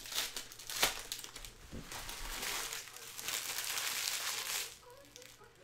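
Foil wrappers of 2021-22 Elite basketball card packs crinkling as the packs and cards are handled, with one sharp click about a second in.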